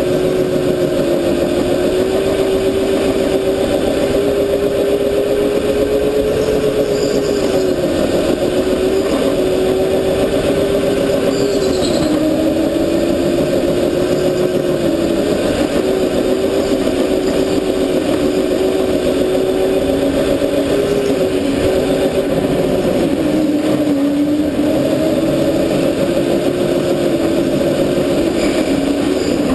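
Sodi go-kart driven at speed, its motor giving a steady drone whose pitch sags several times as the kart slows for corners and then climbs back.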